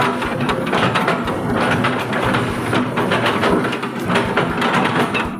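Hitachi Zaxis 130 excavator running: a steady diesel engine note under a rapid, uneven clatter of metal knocks.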